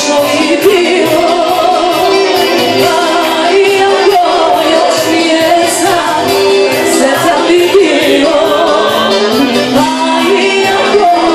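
A woman singing a song live into a handheld microphone over loud amplified music with a steady beat.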